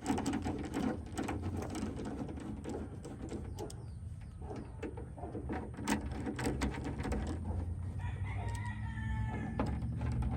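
Irregular metallic clicks and knocks of hand tools as the actuator's mounting bolts are tightened, with a rooster crowing once in the background about eight seconds in, for about a second and a half.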